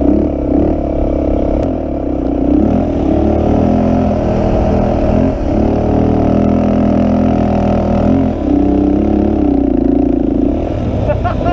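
Honda 350X ATV engine running close up while being ridden, its pitch rising and falling as the throttle opens and eases off, with brief lifts off the throttle about every three seconds.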